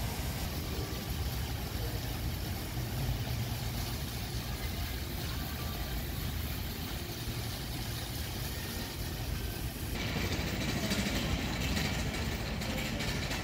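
Steady outdoor background noise with a low rumble. About ten seconds in it changes abruptly to a brighter hiss.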